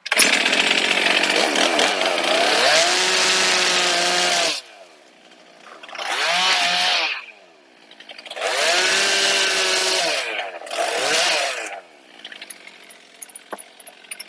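Stihl MS362 two-stroke chainsaw revving and cutting brush in four bursts, the first about four seconds long and the others shorter, its engine pitch sagging as the chain bites. It drops back to a low level between bursts and after the last.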